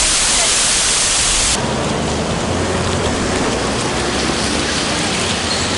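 Water pouring down long stepped cascades into a river, a dense steady rushing hiss. About a second and a half in it cuts off abruptly to city street noise with a low steady traffic hum.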